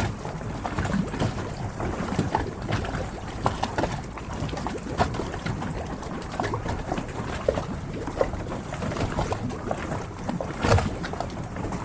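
Harbour water lapping and splashing against the hulls of moored yachts, with frequent small slaps and knocks, and one louder knock about ten and a half seconds in.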